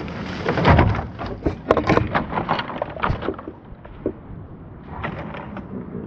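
Traxxas TRX-4 RC crawler with a Land Rover Defender body tumbling down a sand bank: a run of knocks and clatter mixed with rustling dry grass, the heaviest thud about a second in, then a few light clicks near the end.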